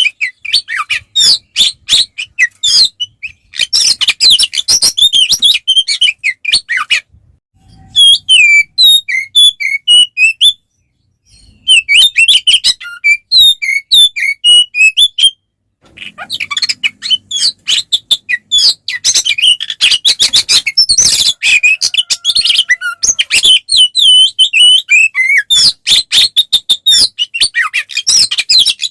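Oriental magpie-robin (kacer) singing loudly in its full fighting song: a rapid, varied run of high chirps, whistles and trills. It breaks off briefly about 7, 11 and 15 seconds in.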